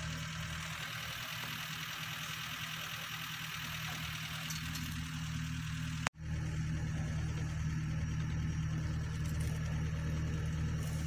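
Safari jeep's engine idling steadily under a steady high hiss. The sound cuts out for an instant about six seconds in, then resumes.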